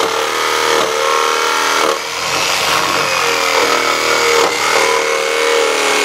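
Jigsaw cutting a curved Craftsman-style rafter tail into a wooden rafter board, its motor running steadily as the blade saws through the wood.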